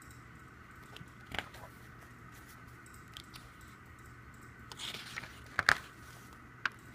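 A CD album and its packaging being handled: a few sharp clicks and taps with a brief rustle in between, over a faint steady room hum.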